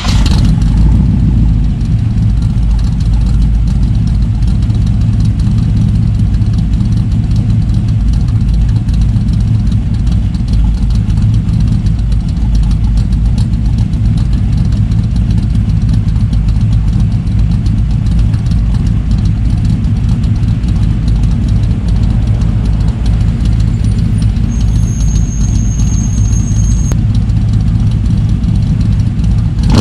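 Built small-block Chevy 350 V8 in a 1985 Chevrolet C10 pickup idling steadily and loudly, its exhaust running through long-tube headers into Cherry Bomb glasspack mufflers dumped ahead of the rear.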